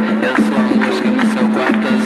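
Recorded music with a steady percussion beat over a held bass note.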